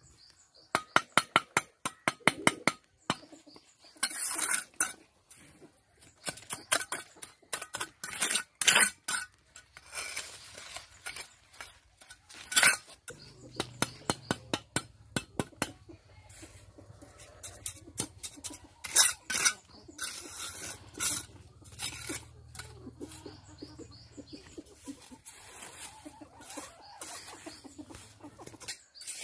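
Steel brick trowel tapping and scraping on bricks and wet mortar as bricks are laid and set in place: quick runs of sharp metallic taps and clinks, with scraping between them.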